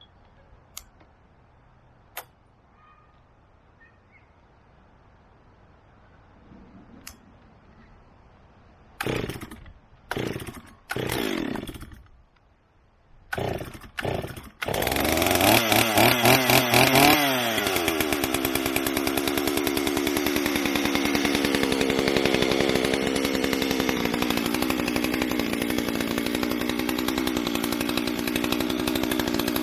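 Stihl 044 two-stroke chainsaw being pull-started: about five pulls of the starter cord, then it catches, revs in quick blips and settles to a steady idle. A few faint clicks come before the pulls.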